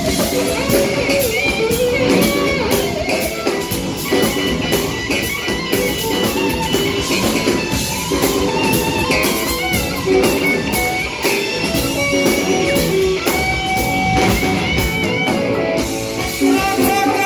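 Live rock band playing loudly through a club PA, with electric guitars, bass and a drum kit.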